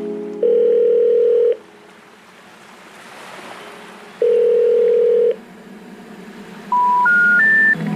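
Telephone call signal tones. Two long single-pitch ringback beeps are followed by the three short rising tones of a special information tone, the signal that a call cannot be connected.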